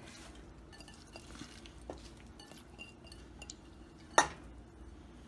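Chopped spinach being tipped and pushed by hand from a glass bowl into a steel pot: faint rustles and small ticks, with one sharp clink of the glass bowl against the pot about four seconds in.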